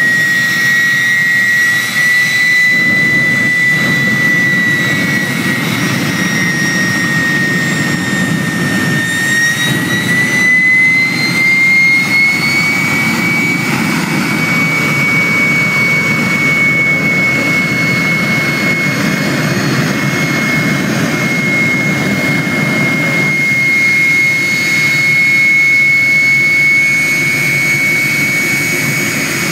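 Turbomeca jet turbine in a Daihatsu Mira jet car running, with a loud steady high whine over a deep roar. The whine climbs slightly in pitch about ten seconds in and holds there.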